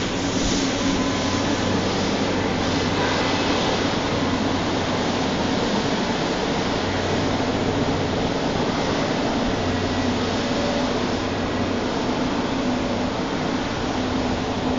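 Elevated subway train on a steel viaduct, a steady rumbling noise with a low hum underneath.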